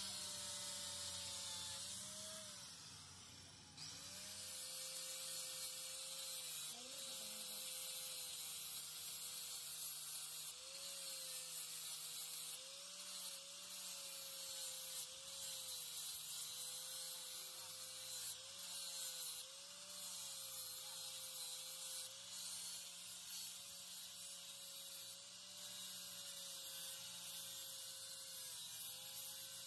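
Handheld electric angle grinder running with an abrasive disc against a small metal part: a steady motor whine that sags in pitch and recovers again and again, over a grinding hiss. The sound drops away briefly about three seconds in, then picks up again.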